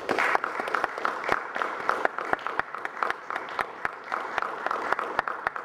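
Audience applauding after the final note, many individual claps standing out over a steady patter.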